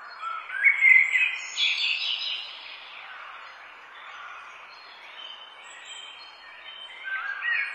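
Birds chirping and calling over a steady background hiss, loudest in the first two seconds or so and picking up again near the end.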